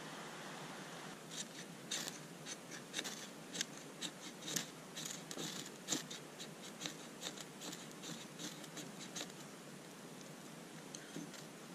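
Ferro rod struck again and again with a striker, an irregular run of sharp scrapes about two or three a second, throwing sparks onto tinder to light a campfire. The strikes stop about three quarters of the way through, with a few faint scrapes near the end.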